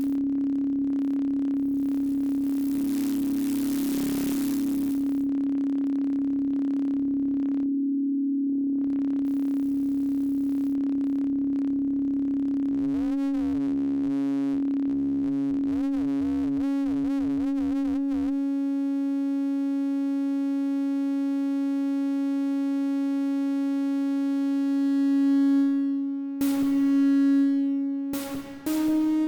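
Elektron Model:Cycles synthesizer playing a drone on one held low note. A hiss swells in and fades early on. Wobbling, pitch-bending overtones then come in and settle into a bright, steady tone rich in overtones, which changes again near the end.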